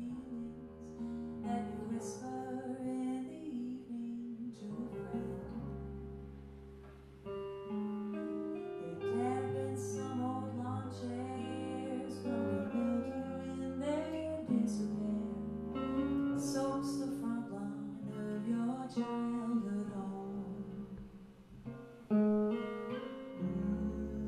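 Live trio music: a woman singing over clean electric guitar chords and upright double bass.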